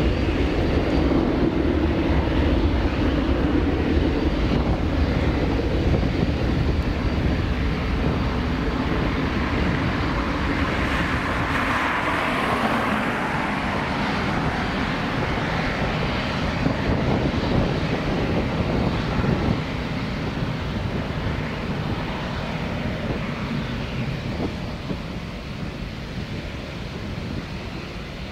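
Air Canada Boeing 787-9's GEnx turbofan engines running as the airliner taxis slowly onto the runway to line up, a steady jet engine noise. It peaks about twelve seconds in and then fades gradually.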